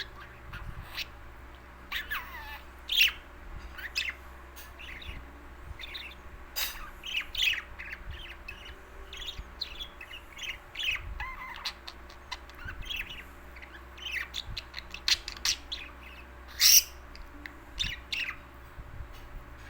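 Pet bird chirping and calling in many short, varied notes, with a few small whistles bending up and down around the middle and sharper, louder calls about three seconds in and again near the end.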